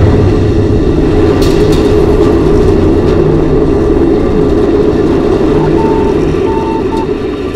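Loud, steady rocket-engine roar with the weight in the deep low end, easing off a little near the end. A few short high beeps sound about six seconds in.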